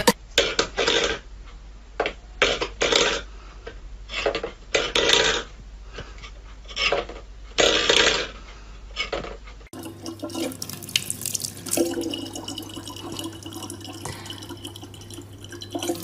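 Several short knocks and scrapes of metal bowls on a wooden floor, one after another. About ten seconds in, this gives way to a tap running a steady stream of water into a plastic bottle.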